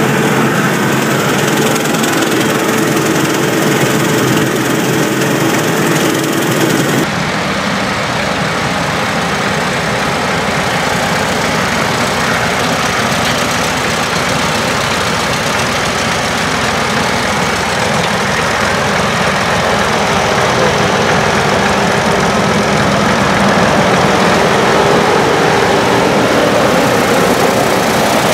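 Case IH utility tractor's engine running steadily as the tractor drives across a field pulling a broadcast seed spreader. The sound changes abruptly about seven seconds in, from close on the tractor to heard from out in the field.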